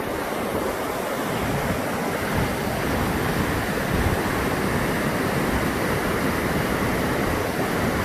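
Steady rush of the Brúará river's water pouring over a waterfall.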